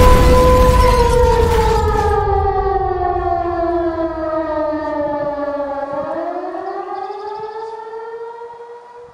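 Siren wail: a steady tone that slides slowly down in pitch for about five seconds, then climbs back up over the last three seconds while fading away. A low rumble under it dies out over the first two seconds.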